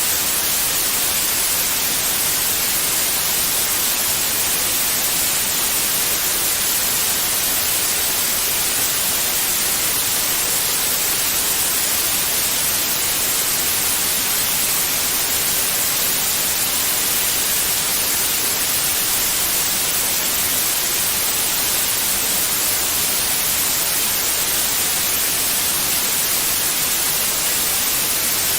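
Steady, unchanging white noise: an even hiss, strongest in the highs, played as a sleep sound for babies.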